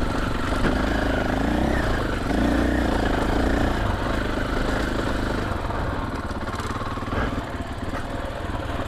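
KTM 500 EXC-F single-cylinder four-stroke dirt bike engine running under the rider, the revs rising and falling with the throttle; the engine eases off about five and a half seconds in.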